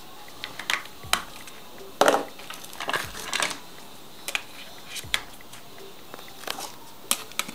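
Micromax Unite 3's snap-fit plastic back cover being prised off and handled, then the battery pressed into its bay: a series of sharp plastic clicks and snaps, the loudest about two seconds in.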